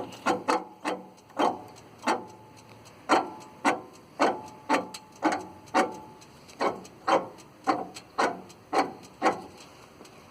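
A/C compressor drive belt pulley with a bad bearing clunking in a rough rhythm, about two knocks a second, stopping near the end. The knocking is the sign of the worn bearing letting the pulley wobble.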